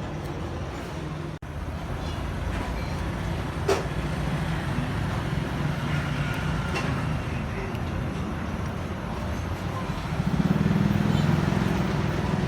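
Steady low rumble of road traffic, swelling about ten seconds in, with a single sharp click near four seconds.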